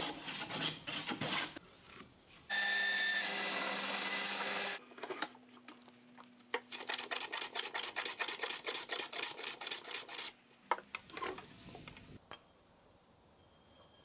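Hand tools cutting wood: a small hand plane shaving a wooden block in quick strokes, a steady machine noise for about two seconds, then a run of rapid rasping strokes along the edge of a board. The strokes stop about two seconds before the end.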